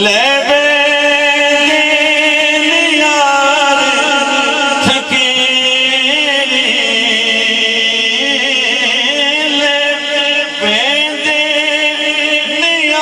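Male voice singing a Punjabi naat, holding long, ornamented notes that glide and waver between the sung lines.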